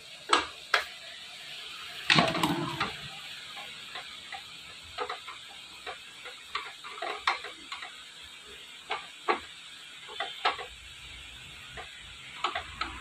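Irregular metal clicks and knocks as a motorcycle cylinder block is set in place and clamped on a cylinder boring machine, with a louder clatter about two seconds in.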